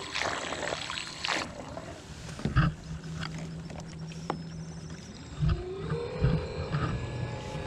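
A small electric thruster motor on a kayak. Water churns at first, then the motor hums low and steady and rises in pitch a little past halfway, with a few knocks from handling gear.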